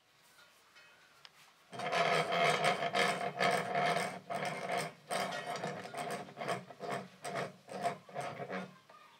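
Hand file rasping back and forth along the edge of a steel knife blank clamped in a vise, in quick repeated strokes that start about two seconds in and stop near the end.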